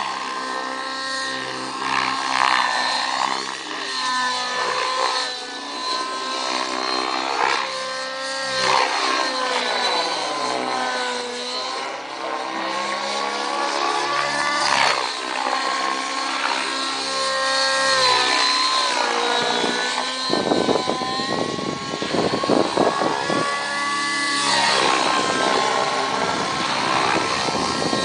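Rave 90 nitro RC helicopter flying aerobatics: its glow engine and rotor whine rise and fall in pitch over and over as it swoops through manoeuvres. A broader rushing sound joins in from about two-thirds of the way through.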